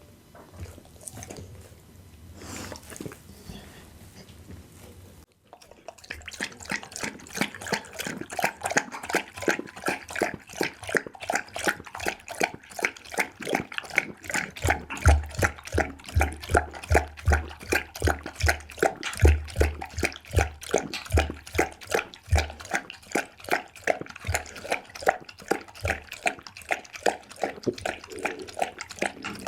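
A pit bull chewing raw meat: rhythmic chews at about three a second that start about five seconds in, after a quieter stretch, with some heavier low thumps in the middle.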